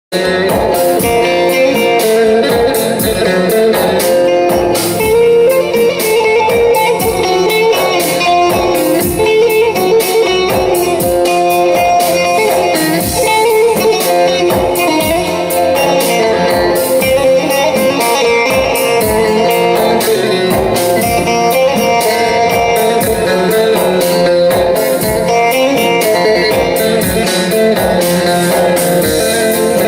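Instrumental passage of a Turkish folk song (türkü) on plucked string instruments: a quick, busy melody of plucked and strummed notes that starts abruptly.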